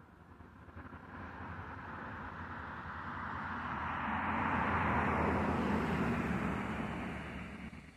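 A road vehicle passing by, its tyre and engine noise swelling, loudest about five seconds in, then fading away.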